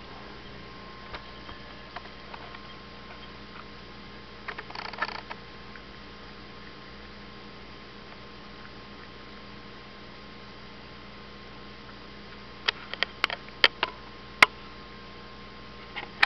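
A cat eating from a bowl: a short spell of soft chewing about five seconds in, and a quick run of sharp clicks near the end, with a steady electrical hum underneath.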